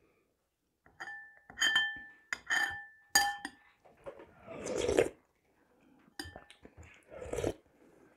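A metal spoon clinks against a porcelain soup bowl several times, and the bowl rings briefly after some of the strikes. There are two longer sips of soup from the spoon, about five seconds in and again near the end.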